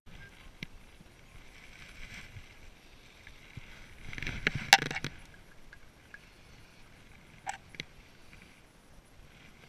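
Rustling and knocking from clothing and gear being handled close to a body-worn camera, with scattered clicks and a louder burst of rustles and knocks about four seconds in.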